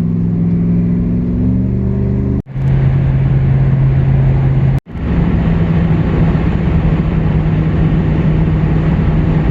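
Vehicle engine running at a steady cruise with road noise while driving, cut off abruptly twice by edits, the engine's pitch a little different in each stretch.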